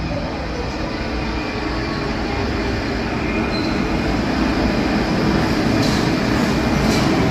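Translohr rubber-tyred tram running, a steady mix of rolling noise and motor hum that grows gradually louder.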